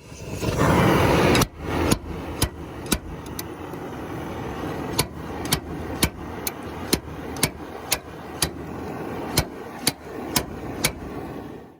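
Oxy-acetylene torch hissing, loud for the first second and a half and then steadier, with sharp metallic knocks about twice a second. The torch is heating a seized wheel-bearing race to expand it off the spindle.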